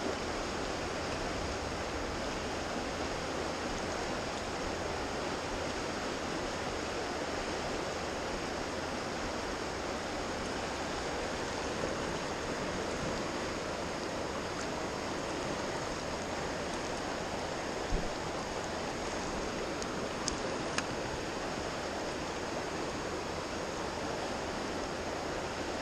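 Fast-flowing river rushing steadily, running high and dark after heavy rain, with a few brief clicks about two-thirds of the way through.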